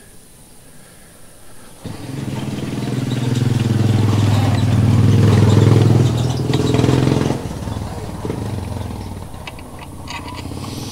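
A motor vehicle's engine running past, a low steady hum that comes in about two seconds in, swells to its loudest around six seconds and drops away sharply a little after seven seconds.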